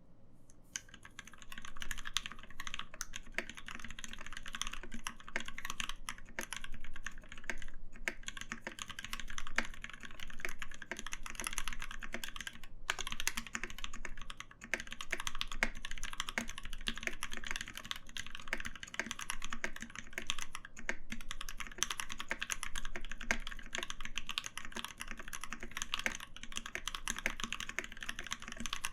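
Satisfaction75 custom mechanical keyboard with Krytox-lubed Mauve switches on a brass plate and JTK Hyperfuse keycaps, typed on continuously in quick runs of keystrokes, broken by a few brief pauses.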